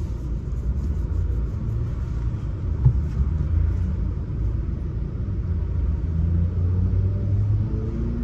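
Inside the cabin of a stage 3 tuned Vauxhall Astra VXR on the move: steady low engine and road rumble from its turbocharged four-cylinder, with a single thump about three seconds in and the engine note starting to rise slowly near the end.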